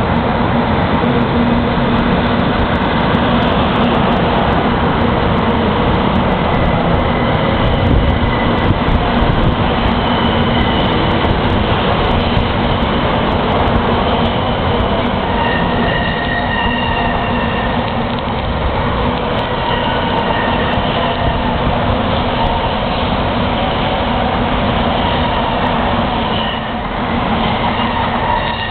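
700 series Shinkansen bullet train rolling past the platform, a steady loud rumble of wheels and running gear, with faint high tones coming in about halfway through.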